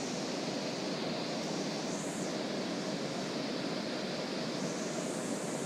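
Steady, even hiss of background noise, with no distinct clicks or knocks.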